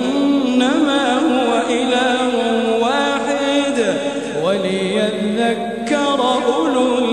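A man's voice reciting the Quran in slow, melodic tajweed chant, drawing out long notes that bend and glide in pitch, with short breaths between phrases.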